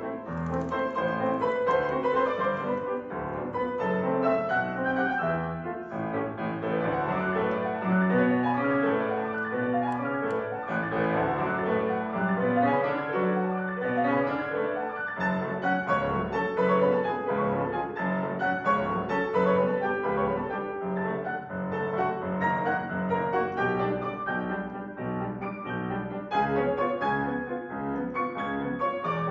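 Piano playing a waltz, with a melody over repeated notes in the bass.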